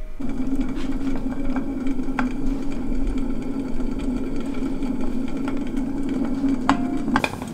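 A steady, low buzzing hum that starts abruptly and cuts off shortly before the end, with a few faint clicks over it.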